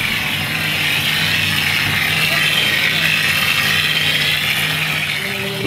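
Compressed-air plastering hopper gun spraying cement mortar onto a wall, a loud steady hiss of air and mortar with a steady low hum underneath.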